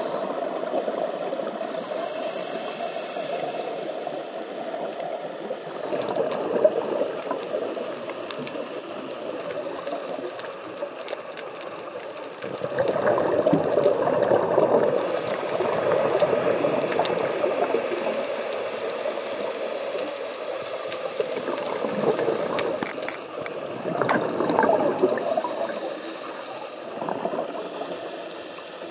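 Underwater sound picked up through a compact camera's sealed underwater housing: a steady watery rushing, with several louder surges of bubbling from a scuba diver's exhaled breath.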